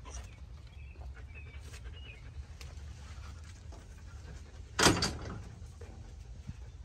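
A dog panting and snuffling close by over a steady low rumble, with one brief loud burst of noise about five seconds in.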